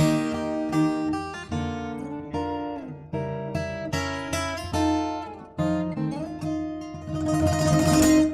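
Acoustic guitar music: plucked notes and chords, each ringing out and fading, with a louder strummed chord near the end.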